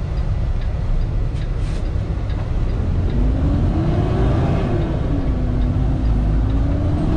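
Kenworth T680 semi truck's diesel engine running under way, heard from the cab: a steady low rumble, with a whine that rises about three seconds in, dips, and climbs again near the end as engine speed changes.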